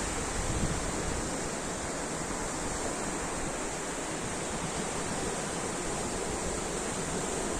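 Ocean surf washing in a steady, continuous rush of water noise.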